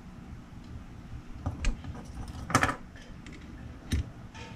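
Scattered light clicks and metallic clinks from hand work on a Bixpy motor's propeller nut: the nut is turned on by hand and an adjustable wrench is set on it. The loudest clink comes about halfway through, with another sharp click near the end.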